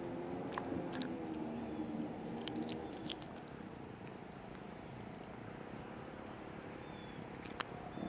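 Quiet creekside background with a faint low hum that fades out over the first few seconds, and a few light clicks and taps from hands handling the fishing tackle and a just-caught bluegill.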